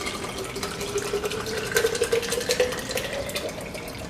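Lemon water being poured from a pitcher into a glass, its pitch rising steadily as the glass fills.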